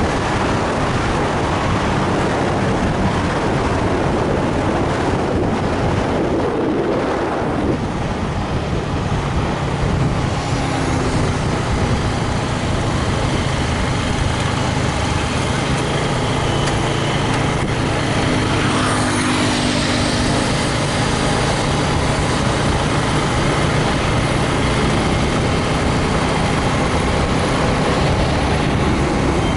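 Steady, loud road and engine noise of a vehicle travelling at highway speed, with engine hum under a continuous rush of road noise.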